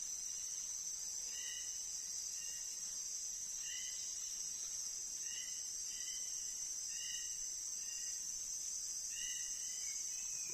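Steady high-pitched insect chorus, with a bird giving short, repeated call notes about once a second over it.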